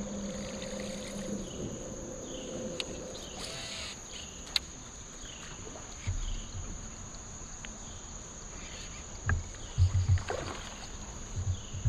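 Steady drone of insects with a faint chirp repeating about once a second. A couple of sharp clicks come near the middle, and a cluster of low knocks on the kayak hull comes late.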